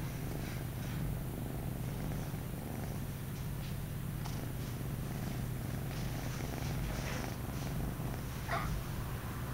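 Tabby kitten purring steadily, close to the microphone, with a few faint soft ticks and one brief higher-pitched sound near the end.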